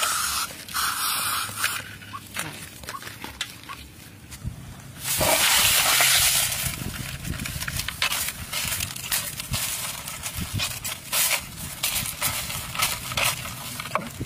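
Crushed ice crunching and clicking in a clay pot as a stick pushes scorpions down into it, a run of small irregular clicks. About five seconds in, a loud rush of noise lasts over a second.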